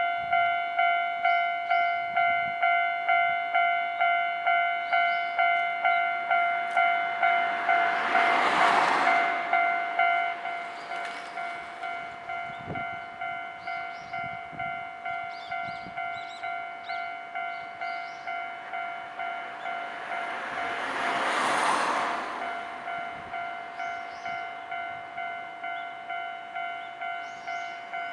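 Japanese railway level-crossing warning bell ringing steadily, about two strokes a second. A train passes about 8 seconds in and another about 21 seconds in, each a swelling rush of wheel and rail noise that briefly covers the bell, and the bell rings more quietly after the first.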